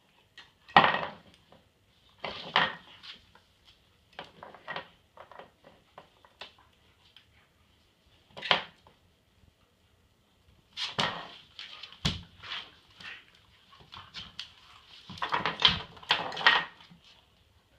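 A large dog and a puppy play-wrestling on a wooden floor: irregular bursts of scuffling and clicks, the loudest about a second in and a busy run near the end.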